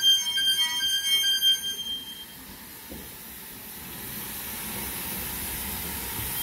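Steam locomotive LMS 8F 2-8-0 No. 48305 moving slowly: its wheels squeal loudly on the rails for about the first two seconds, then stop. Steam hissing takes over and grows slowly louder, over a low rumble of the engine rolling by.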